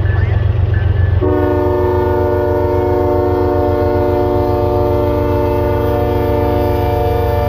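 Canadian Pacific GE ES44AC diesel locomotive passing close with a deep engine rumble, hauling a double-stack container train. About a second in its multi-chime air horn starts and is held as one long steady chord.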